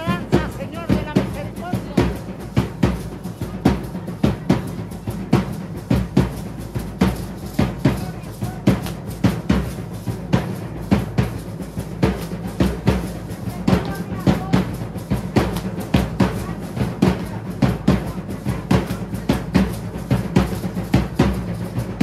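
Drums beating a steady, driving rhythm for a Mexican danza, with hand rattles shaken along.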